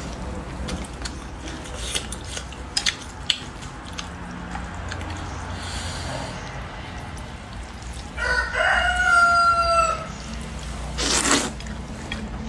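A rooster crows once, about eight seconds in: a long call that rises at the start, holds and then trails off, the loudest sound here. Around it are noodle-eating sounds: a few small clicks early on and a short loud slurp of noodles near the end.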